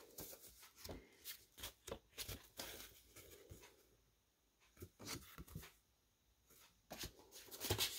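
Faint rustling and light taps of paper journaling cards being handled and swapped in the hands, with a stretch of near silence just after the middle and a louder flurry of handling near the end.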